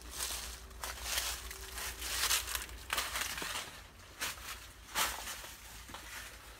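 Irregular crunching and rustling of footsteps on debris and of brushing against dry vines while stepping into a cluttered shed, in several short uneven bursts.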